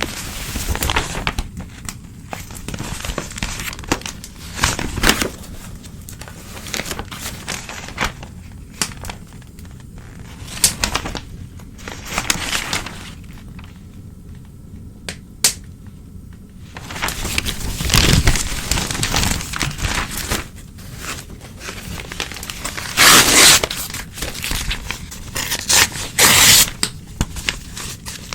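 Newspaper being torn and crumpled by hand, in irregular rips with crinkling between them. The longest, loudest tears come about three quarters of the way through, after a quieter stretch of soft rustling.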